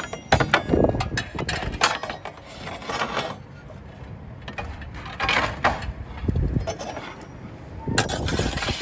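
Roofing slates scraping and clicking against each other as a pulled slate is handled on the roof, with a few sharp clicks early on and another scrape about five seconds in. Wind buffets the microphone near the end.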